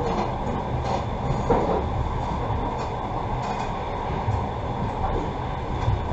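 Passenger train running along the track, heard from inside the carriage: a steady rumble of wheels on rails with a few light knocks.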